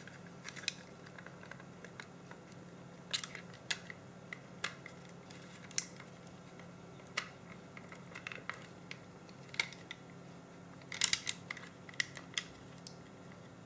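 Small plastic clicks and snaps from an Olympus C-350 digital camera's casing and parts being handled and pried apart by hand. They come irregularly, with a quick run of clicks late on, over a faint steady hum.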